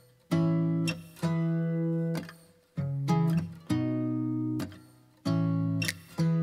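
Guitar chords strummed one at a time, about one a second. Each chord rings briefly and is then damped or fades before the next.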